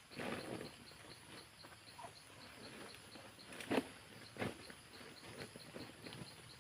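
An insect chirping in a steady run of short, evenly spaced pulses, about three to four a second. Scattered knocks and rustles come over it, with a sharp knock a little past the middle.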